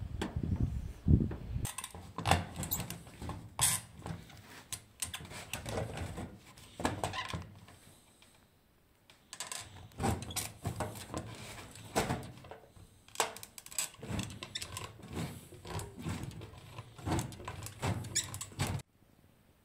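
Hand tin snips cutting painted sheet metal: a rapid series of short snips, pausing briefly about eight seconds in, then resuming and stopping abruptly near the end.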